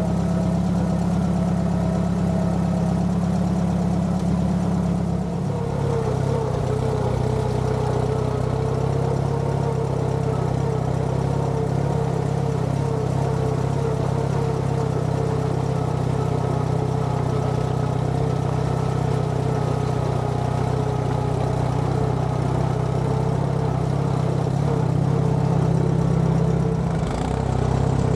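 Allis-Chalmers B tractor's four-cylinder engine running steadily as the tractor drives along a dirt track. The engine note drops a little about five seconds in and dips briefly near the end.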